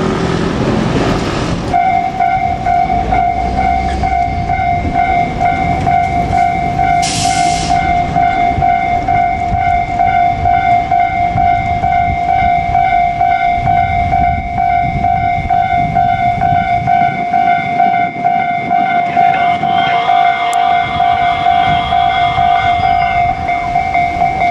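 A Japanese railway level-crossing alarm starts up about two seconds in and rings its repeating electronic bell steadily, over the rumble and wheel clatter of a JR Kyushu 787-series electric train passing over the crossing.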